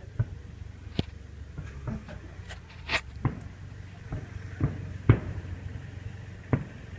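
About eight sharp pops and thumps at uneven intervals, the loudest about five seconds in, over a steady low rumble.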